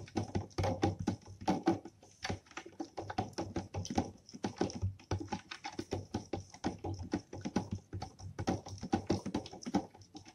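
A spoon clinking and tapping against the inside of a glass jar of water in rapid, irregular clicks, stirring table salt in until it dissolves.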